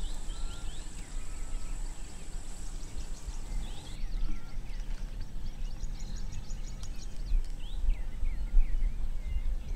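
Bush ambience: birds chirping in many short, falling calls over a steady low rumble. A thin, steady high whine stops about four seconds in.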